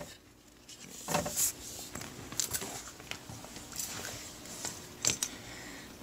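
Light clicks and knocks of a removed dishwasher drain solenoid and its plastic and metal parts being handled by hand, a few scattered taps, the loudest about a second in and again about five seconds in.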